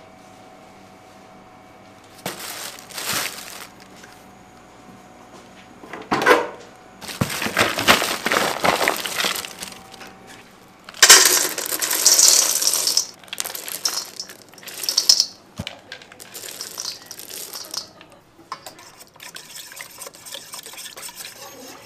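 Chocolate discs scooped out of a plastic bag and poured: a dry rattling clatter with plastic rustling, in several bursts, the loudest about halfway through. Near the end, a wire whisk stirs in a stainless steel bowl with light clinks.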